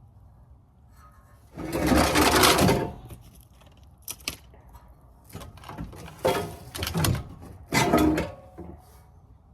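Metal exhaust system of a 1999 Honda Accord scraping and knocking as it is dragged out from under the car: one long scrape about a second and a half in, then a run of shorter scrapes and clunks in the second half.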